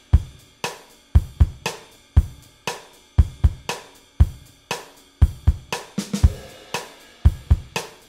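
Background music led by a drum kit: a steady beat of kick drum, snare and hi-hat or cymbal at about two beats a second.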